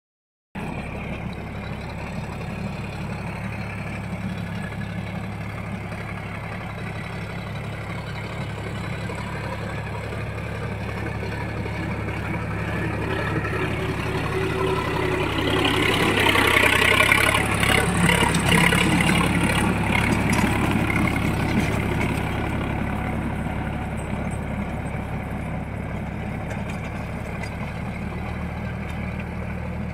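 Sonalika DI 35 tractor's diesel engine running steadily under load while it drives a rotavator through the soil. It grows louder as the tractor comes close, peaks about halfway through, then fades as it moves away.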